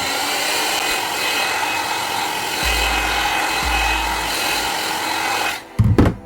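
Heat gun blowing a steady rush of hot air, as used to soften the adhesive under a phone's back glass, switched off about five and a half seconds in. A couple of loud knocks follow near the end.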